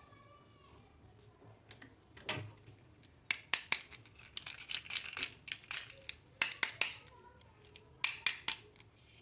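Handling noise of a toy and its packaging: scattered sharp clicks and short crinkling rustles in several quick clusters.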